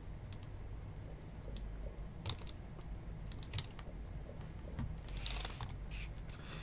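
Computer keyboard keys clicking: a few scattered presses, then a quick cluster about five seconds in, over a low steady hum.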